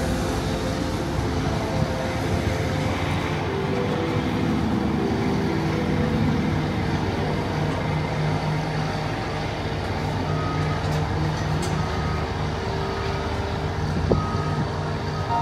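Heavy lifting machinery at a construction site running steadily, the engines making a continuous drone that shifts a little in pitch. From about two-thirds of the way in, a warning alarm beeps roughly once a second.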